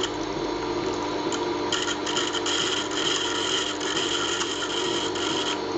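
Tormek sharpening machine running, its grinding wheel scraping steel off a Wenger Swiss Army knife awl held in a jig: a steady motor hum with a rasping grind on top.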